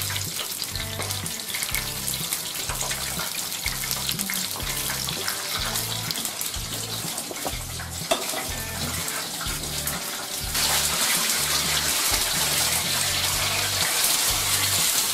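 Meat pies frying in hot oil in a frying pan: a steady sizzle that grows louder about ten and a half seconds in, with a single knock about eight seconds in. A quiet bass line of background music runs underneath.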